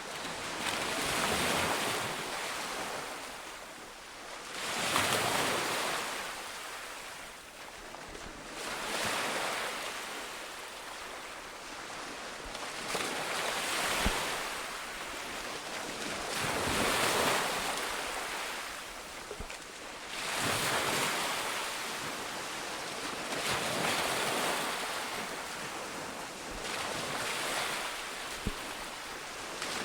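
Sea waves breaking and washing on a shore, the surf swelling and fading every few seconds in an even rhythm, with some wind.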